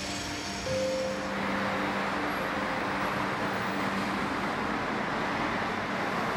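Steady city street ambience of road traffic, an even wash of passing-vehicle noise, with a faint held tone in the first couple of seconds.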